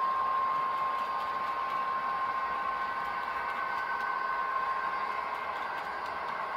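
Model Canadian Pacific SD70ACU locomotive running along the layout: a steady whine with a hiss underneath.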